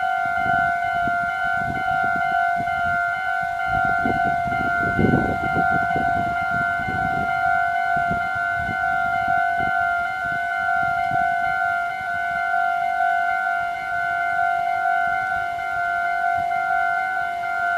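Japanese electronic level-crossing warning bell ringing steadily with its repeating two-tone ding. Underneath, a Meitetsu 1700-series limited express passes through the crossing: its rumble and wheel clatter swell about five seconds in and die away by about twelve seconds.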